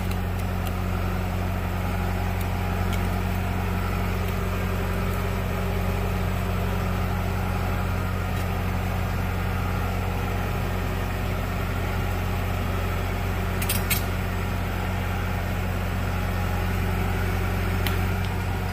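Heavy machine's diesel engine running at a steady speed, an even low hum with no revving. A brief click sounds about three-quarters of the way through, and a fainter one near the end.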